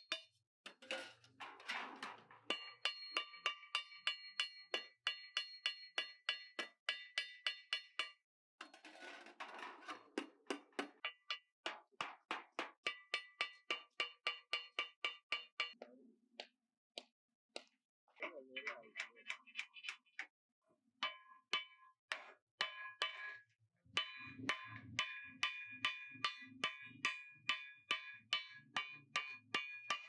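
Hammer blows on the steel shell of an old water heater, about three a second in runs with short pauses, each blow ringing with a metallic tone.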